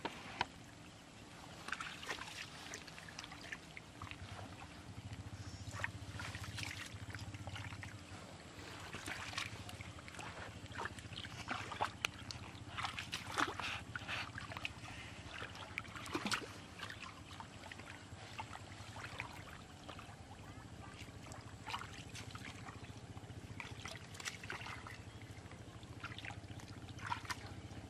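Hands groping and splashing in shallow muddy water, with irregular wet slaps, drips and squelches of mud.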